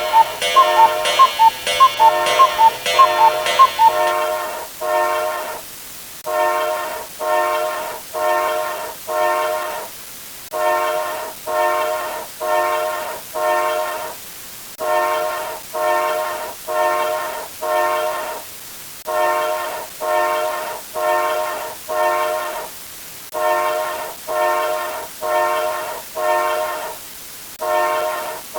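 A sound effect of a horn-like tone, rich in overtones, sounding in short pulses grouped four at a time with brief pauses between the groups. For the first four seconds a fast, ringing, clock-like ticking plays over it.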